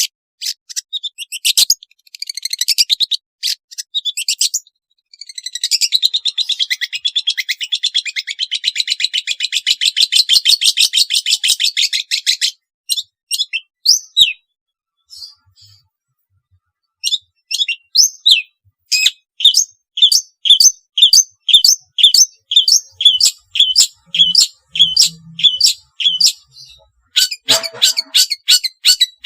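Long-tailed shrike singing: sharp high calls, then a long rapid trill lasting about seven seconds. After a short pause comes a steady run of repeated sharp notes, about two a second, and a harsher call near the end.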